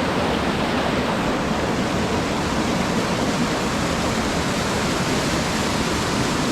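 Creek waterfall rushing steadily: an even, unbroken roar of falling water.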